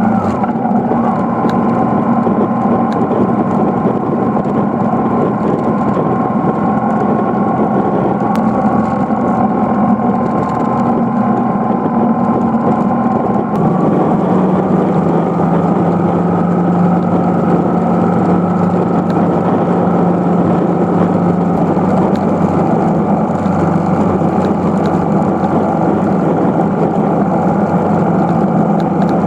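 BMW R1150GS air/oil-cooled flat-twin boxer engine running under way, picked up by a handlebar-mounted phone. Its note holds steady, then shifts in pitch about halfway through and stays even again.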